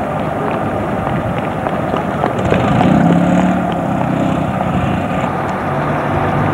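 Steady street noise picked up by a camcorder microphone: a continuous rumbling hiss, with a low engine-like hum swelling about three seconds in.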